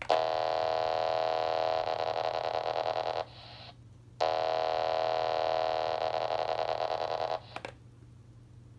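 Handheld scanner radio picking up the RadioShack paging transmitter's 27.255 MHz signal: a steady buzzing data tone for about three seconds, a short hiss of static as it drops out, then a second identical buzz of about three seconds, again ending in a brief hiss.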